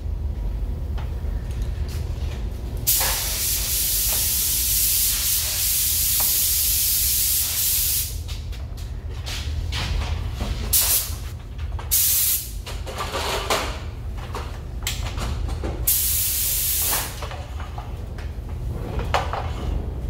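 Compressed-air paint spray gun hissing in spells as the trigger is pulled: one long pull of about five seconds, then several shorter ones. This is the finishing work of a three-coat repaint. Under it runs a steady low hum.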